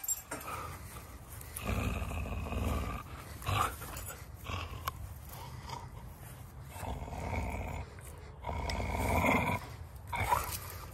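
A dog growling in three rough, drawn-out bouts of a second or more each, with a couple of short sharp sounds between them.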